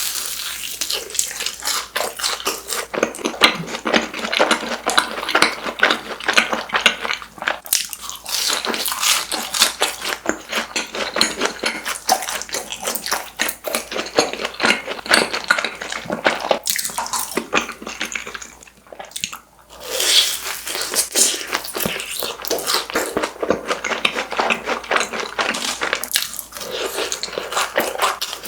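Close-miked biting and chewing of fried cheese balls: crisp crunching of the fried shell mixed with wet, sticky chewing, going on almost without break with a short pause about two-thirds of the way through.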